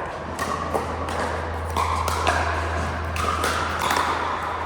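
Pickleball play: sharp pops of paddles striking the plastic ball and the ball bouncing, at irregular intervals, over a steady low hum.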